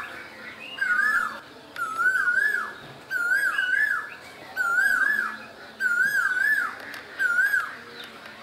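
Asian koel calling: a clear whistled phrase of two quick notes, repeated steadily about once a second, some eight times at the same pitch.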